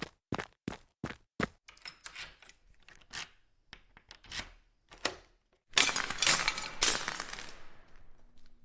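A run of quick, evenly spaced knocks, about three a second, that breaks up into scattered clicks. About six seconds in comes a loud crash of something breaking, which dies away over about two seconds.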